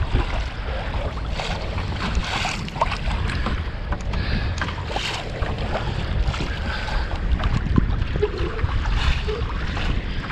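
Wind buffeting the microphone in a steady low rumble, with small waves lapping and knocking against the hull of a fishing boat.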